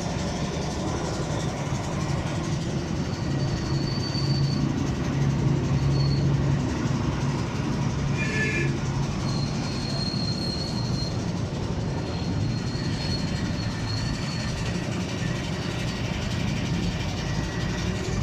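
A train running past on the adjacent track: a steady rumble of the wagons, with a thin high wheel squeal that comes and goes.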